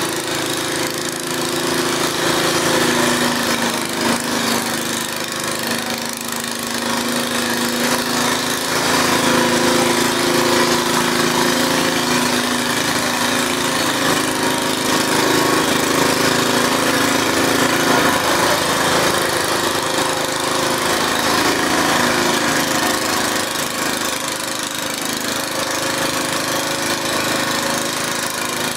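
Pulling garden tractor's engine running steadily and loudly while hitched to the pulling sled.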